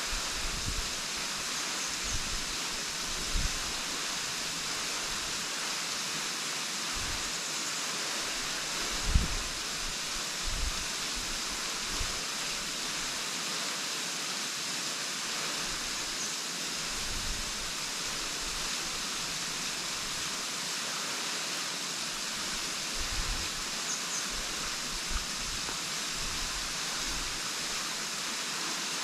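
Henrhyd Falls waterfall: a steady rush of falling water. Now and then a brief low thump breaks in, the strongest about nine seconds in.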